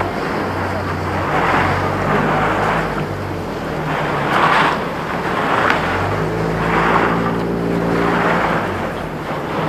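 Plastic water kegs dragged on ropes over brick paving, a continuous scraping rumble with fabric rubbing over the microphone, swelling about once a second with each stride. A low steady hum runs underneath, growing stronger and richer from about six seconds in.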